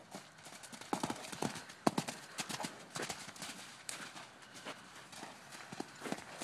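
Hoofbeats of horses trotting and cantering loose on dirt ground, a quick irregular run of hoof strikes.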